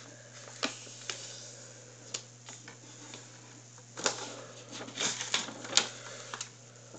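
A sheet of paper being unfolded and handled: a scatter of short, crisp paper crackles and taps, busiest about four to six seconds in, over a steady low hum.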